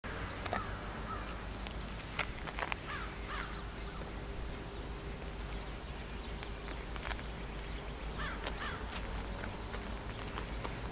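Wild birds calling: short scattered chirps and gliding calls, over a steady low rumble.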